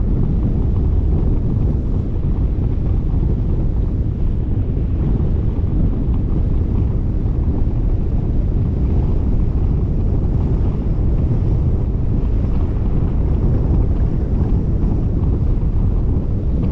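Wind buffeting the microphone: a steady low rush without a break.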